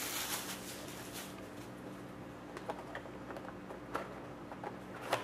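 A few light clicks and taps of a cardboard trading-card box being handled and its lid lifted on a glass desk, over a faint low steady hum.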